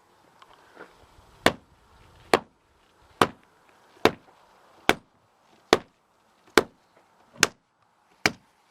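Steady, rhythmic tamping of a filled earthbag wall course with a hand tamper: nine sharp strikes, a little under one a second.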